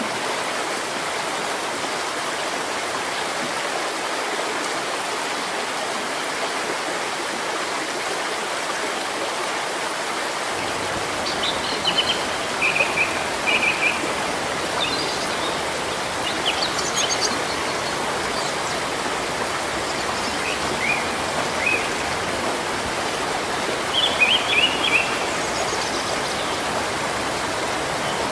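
Steady rain falling on tree foliage, an even hiss that turns slightly fuller and lower about ten seconds in. From about twelve seconds on, a bird chirps in short runs of high notes, five or six times.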